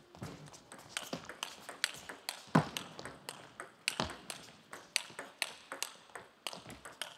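Table tennis rally: the celluloid ball clicks sharply off the rackets and the table, about three hits a second, one hit louder than the rest about two and a half seconds in.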